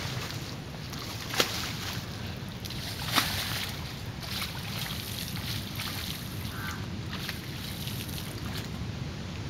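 Water splashing as men wade in the shallows of a canal while net fishing, with two sharper splashes about a second and a half and three seconds in, over a steady low rumble.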